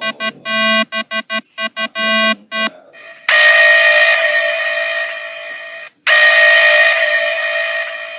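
Electronic emergency alert alarm tone: a stuttering run of short, buzzy beeps, then two long, steady, horn-like tones of about two and a half seconds each, each fading slightly, with a short break between them.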